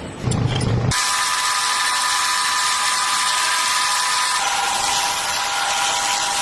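Metal lathe running and cutting: a steady high whine over a hissing cutting noise. It starts abruptly about a second in, and the whine steps down in pitch a little past four seconds.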